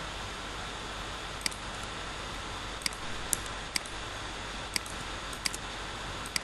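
Computer mouse button clicking, about seven short, sharp clicks at uneven intervals, over a steady background hiss.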